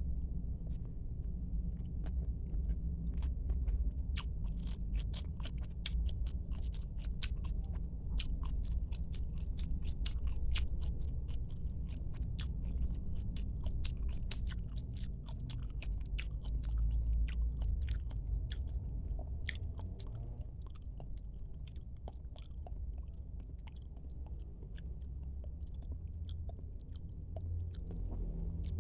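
Close-up chewing of squid: many quick, wet mouth clicks, thick at first and thinning out later, over a steady low hum.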